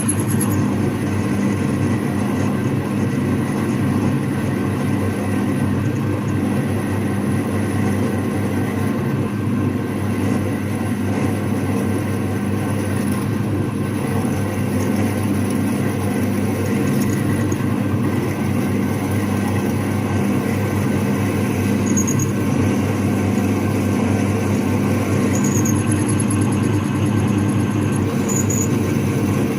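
Electric workshop drilling machine running steadily, its motor humming at a constant speed while it drills out a hole with stepped bits.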